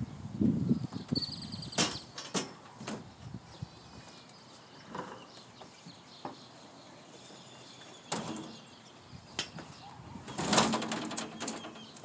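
A refrigerator being moved on a hand truck, with scattered knocks and clunks of metal and the fridge's cabinet. There is a low rumble in the first second or so, and the knocks come thickest near the end as the fridge is tipped up off the dolly.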